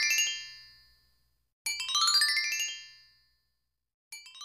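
Channel intro jingle: quick rising runs of bright chime-like notes that ring out and fade. One run is dying away at the start, a full run comes about a second and a half in, and a shorter one begins near the end.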